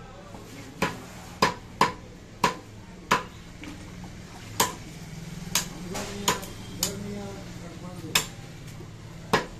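Heavy butcher's knives chopping goat meat on a wooden log chopping block: about a dozen sharp chops at an uneven pace.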